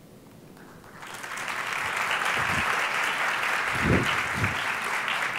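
Audience applause that starts about a second in, swells quickly and holds, with a few dull low thumps partway through.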